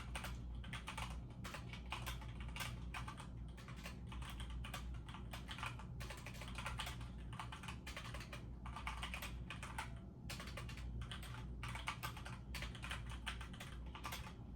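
Rapid, continuous typing on a computer keyboard, with a few short pauses.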